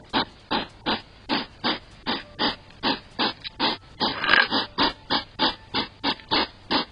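Hedgehog huffing: rhythmic puffing snorts, about three a second, with a longer, louder huff about four seconds in.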